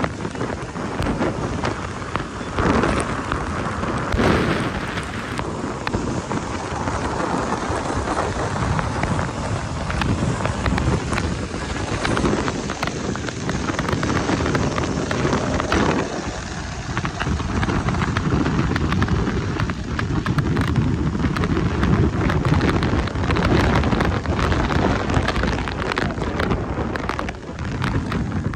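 Heavy rain pouring, a dense steady hiss with a low rumble underneath that swells and eases.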